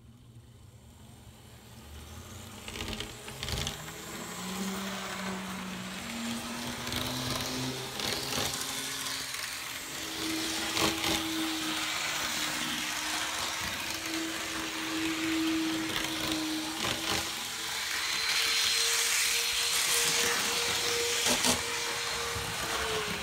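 Kato N scale GE C44-9W model diesel locomotive starting off and speeding up on its track. The small electric motor whines, stepping up in pitch several times as it gains speed, over a rattle of wheels on rail with occasional sharp clicks.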